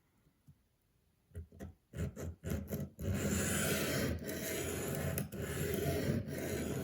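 A 1095 carbon-steel knife blade stroked on a wet sharpening stone: a few short strokes, then rough, continuous scraping with brief breaks. The roughness is the burr breaking off the edge.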